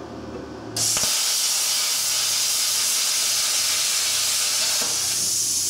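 Luch Profi CUT-50 plasma cutter cutting metal at about 36 amps: a loud, steady hiss of the arc and air jet starts suddenly under a second in, with a click just after, and holds steady.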